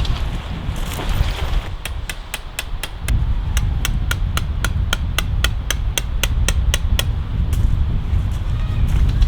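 Hammer blows, a quick even run of about four sharp strikes a second lasting some five seconds, over wind buffeting the microphone.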